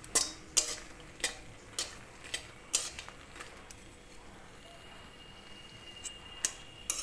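Metal spatula tapping and scraping against a steel kadai while bori fry in mustard oil with a faint sizzle. Sharp taps come about every half second for the first three seconds or so, pause for a while, then a few more come near the end.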